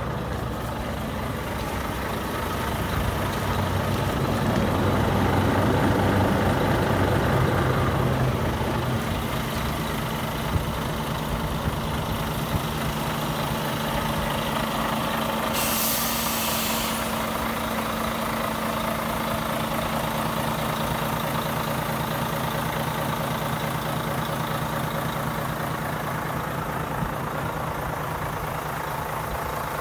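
Volvo FH500's 13-litre straight-six diesel idling steadily, a little louder for a few seconds near the start. About sixteen seconds in comes a short hiss of compressed air let out of the truck's air system.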